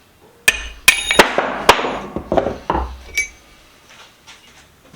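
Hammer blows on a steel drift punch stuck in a cast-iron pipe wrench: four sharp metal-on-metal strikes with a ringing tone in the first two seconds, then a few lighter knocks and taps.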